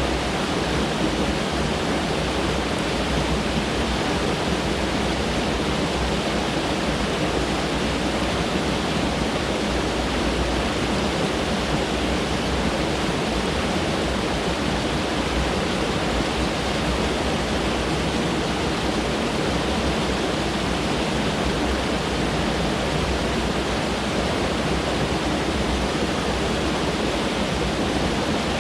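Mountain stream running over rocks, a steady, even rush of water.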